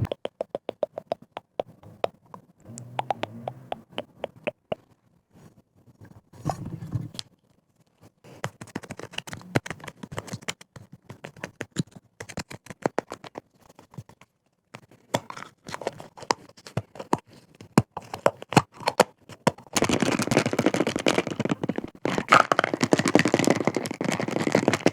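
Close-miked ASMR tapping and scratching on objects: irregular quick taps and clicks, with short bouts of scraping, then a louder stretch of dense, continuous scratching near the end.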